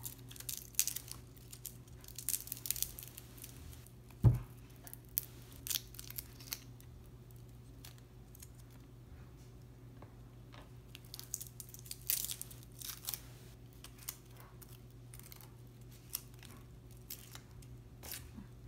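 Garlic cloves being peeled by hand: the dry, papery skins crackle and tear in short, scattered bursts. One dull thump on the wooden cutting board comes about four seconds in.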